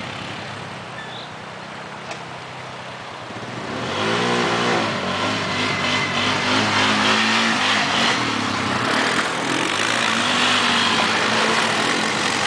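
Polaris ATV engine, faint at first, then much louder from about four seconds in as a quad drives close by, its pitch rising and falling with the throttle.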